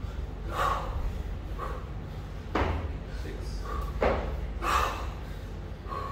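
A kettlebell lifter breathing hard through a set: short, sharp, noisy exhalations every second or two, with smaller breaths between, over a low steady hum.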